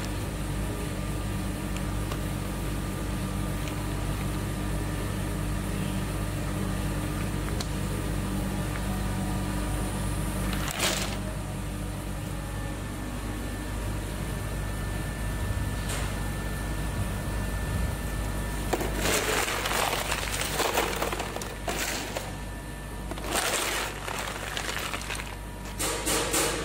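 A steady low machine hum from the running 3-ton-a-day tube ice machine. A single crack comes about eleven seconds in. In the last third, tube ice rattles and scrapes in a plastic scoop several times as the scoop is worked through a basin of ice.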